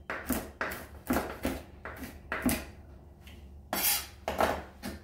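Chef's knife chopping fresh thyme on a wooden cutting board: irregular knocks of the blade striking the board, with a longer, louder stroke nearly four seconds in.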